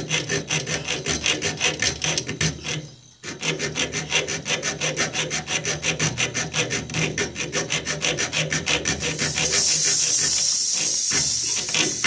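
Rapid back-and-forth sawing strokes cutting through a refrigerator's refrigerant tube at the compressor, with a short break about three seconds in. About nine seconds in the strokes give way to a loud hiss of refrigerant gas escaping from the cut, the sign that gas was still in the system.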